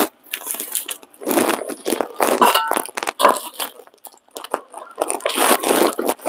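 Irregular crunching and scraping of garlic being chopped with a big knife on a cutting board, in several short spells with sharp strokes among them.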